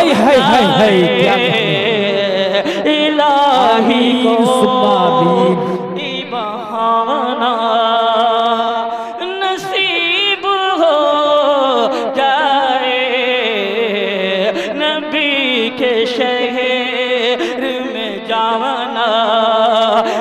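A man singing a naat, a devotional Urdu poem in praise of the Prophet, in a melodic, ornamented line whose pitch slides and wavers on long held notes.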